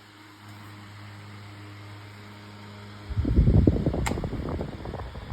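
8-inch Better Homes and Gardens metal table fan running on high speed, its motor humming steadily. About three seconds in, a loud rushing rumble of air on the microphone sets in as the oscillating fan blows toward it, with a single click a second later.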